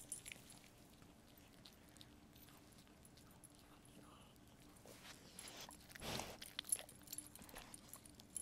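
A dog sniffing and licking right at the camera, mostly faint, with a louder sniff about six seconds in and a few light jingling clicks near the end.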